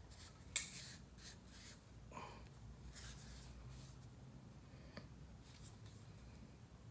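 Hands handling a 3/4 hp variable-speed ECM blower motor that is not running, lifting it and turning it over: one sharp knock about half a second in, then faint rubbing and a small click later on.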